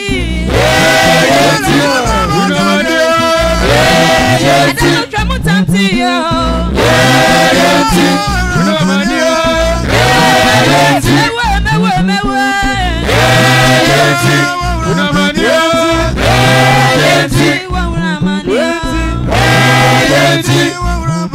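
A group of men and women singing a worship song together into handheld microphones, amplified through loudspeakers.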